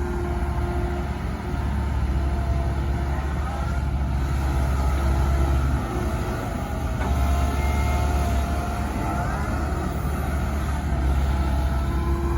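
Komatsu PC130 excavator's diesel engine running steadily with a deep drone, easing briefly about halfway and picking up again. Faint wavering whines sit above it at times.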